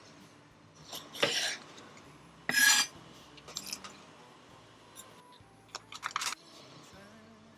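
Kitchen utensils and dishes clattering: a few separate clinks and scrapes, the loudest about two and a half seconds in.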